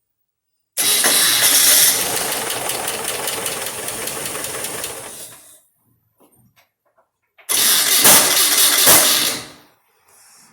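Chevrolet Opala being cranked twice by its starter motor, each time with a loud harsh noise at the start, the first lasting about five seconds and the second about two. The noise comes from the starter pinion meshing with a badly worn flywheel ring gear whose teeth are rounded off, and a starter with a misaligned bearing.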